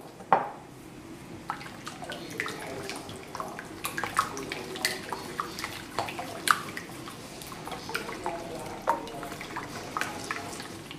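A bare hand squishing and mixing a runny brioche mixture in a large ceramic dish: irregular wet squelches and slaps, with one sharp knock just at the start.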